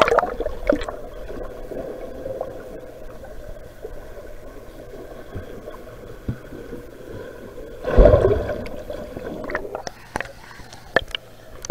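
Muffled underwater sound picked up by an action camera held below the surface of a pool: steady gurgling water. About eight seconds in there is a louder surge of water. Near the end come sharp splashes and drips as the camera breaks the surface.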